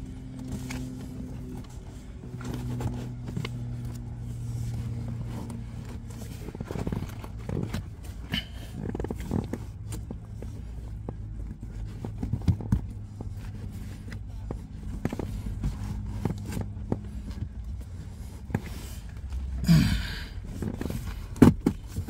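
Pleated cabin air filter being squeezed and pushed into its tight plastic housing: scattered scrapes, rustles and clicks of the filter frame against the housing, with a louder scrape and a sharp click near the end, over a low steady hum.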